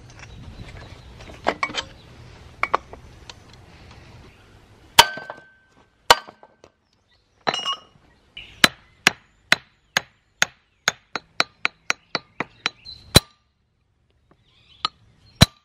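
A hammer strikes a chisel held on an old Tecumseh magneto ignition coil set on a brick, chipping the coil open. There are a few single metal strikes, the first with a brief ringing tone. About halfway through comes a quick run of about fifteen blows, roughly three a second, and then two last strikes near the end.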